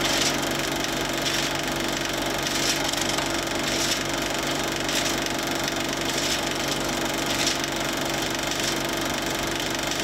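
Film projector running: a steady mechanical whir with a low hum and a light tick a little more than once a second.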